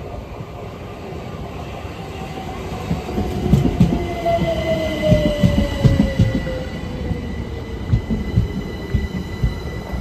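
Gatwick Express Class 387 electric multiple unit running into the platform and slowing. Its whine falls steadily in pitch as it slows, a steady high squeal comes in about four seconds in, and the wheels thud unevenly on the rails as the carriages pass close by.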